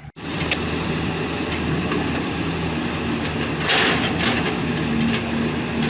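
Heavy machine's diesel engine running steadily, with a brief burst of rattle and hiss about four seconds in.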